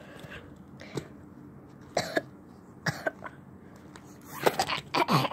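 A child's voice making short cough-like vocal noises: a few single ones spaced about a second apart, then a quicker run near the end with sounds that fall in pitch.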